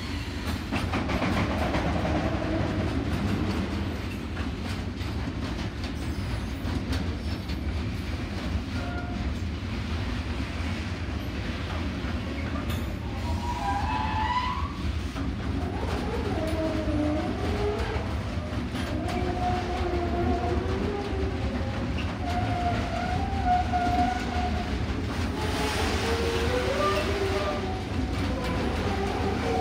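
Container freight train wagons rolling past, a steady rumble with the clatter of wheels over the rails. From about halfway on, short wavering squeals rise and fall over the rumble.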